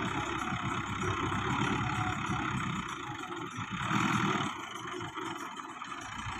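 Fiat 640 tractor's diesel engine running hard under load as its front blade pushes soil up into a trolley, swelling briefly about four seconds in and then easing off.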